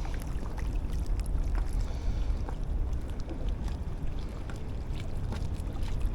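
Steady low rumble of wind buffeting the microphone by the river, with faint scattered clicks.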